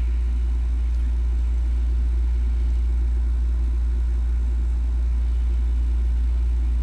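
A steady low hum, constant in level and pitch, with nothing else standing out.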